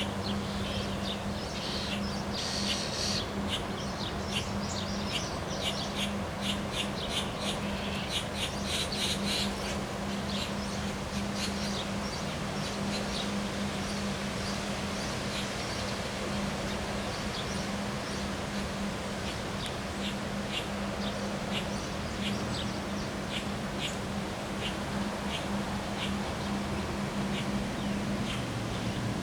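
Birds chirping in quick short calls, thick in the first ten seconds or so and then more scattered, over a constant rushing noise and a steady low hum.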